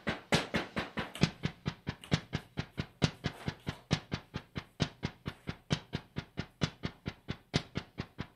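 Looped percussion rhythm of sharp clicks, about seven a second with a louder click roughly once a second, very even and machine-steady: the intro of a song on a live electronic setup.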